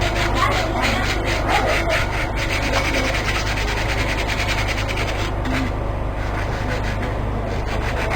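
Quick back-and-forth abrading strokes on wood, about five or six a second, as a calligraphy piece is worked by hand. The strokes grow fainter about five seconds in.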